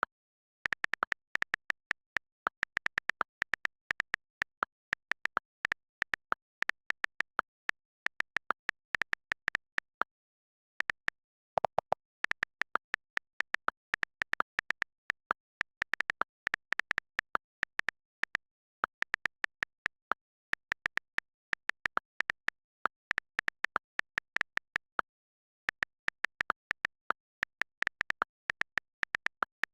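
Keyboard key-press clicks from fast typing, several a second in uneven runs. The clicks stop for about a second around ten seconds in and again near twenty-five seconds. A brief, longer tone sounds about twelve seconds in.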